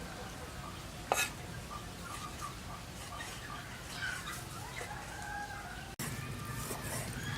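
Chickens clucking, with a single sharp knock about a second in.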